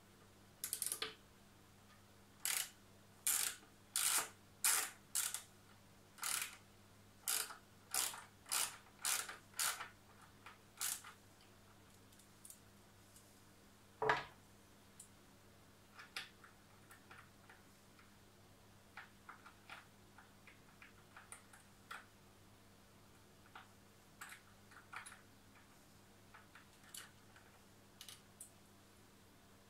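Ratchet wrench turning the mounting screws of a supported linear rail on an aluminium CNC router frame: a run of about fifteen short ratcheting strokes over the first eleven seconds, then one sharp knock as the wrench is set down on the table, followed by scattered soft clicks of the screws being handled.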